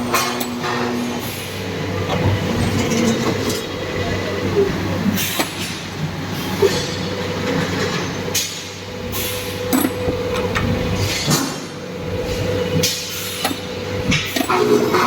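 Automatic pipe cutting machine running: a steady motor hum under a noisy mechanical rumble, broken by scattered sharp metallic clicks and knocks.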